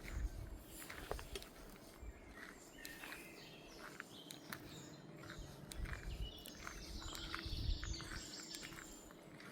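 Several small wild birds chirping and singing in short, overlapping calls, with low thuds of footsteps on a path.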